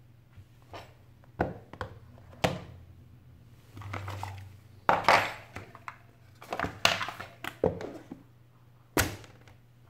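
A smartphone and its cardboard retail box being handled on a table: a string of sharp taps and knocks as the phone is set into the box tray and moved about, with brief rustling of the paper inserts.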